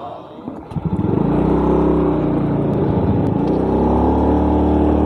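A small automatic motor scooter's engine running under way. It comes in about a second in with a steady hum, and dips briefly a little past the middle before picking up again.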